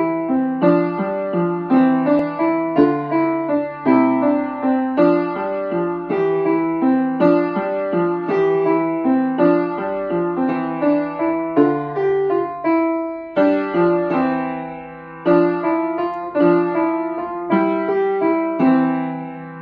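Acoustic upright piano played by a young beginner with both hands: a simple tune in the middle register at a steady, even beat. About two-thirds of the way through, one note is held and dies away before the playing picks up again.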